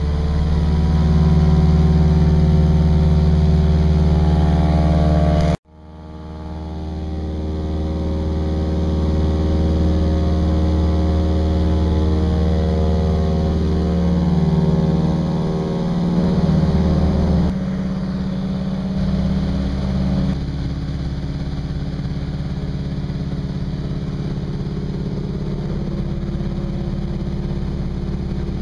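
Single-engine floatplane's piston engine and propeller running steadily, heard from inside the cabin. The drone breaks off abruptly about five seconds in and picks up again, then shifts in pitch and settles a little lower and quieter from about two-thirds of the way through.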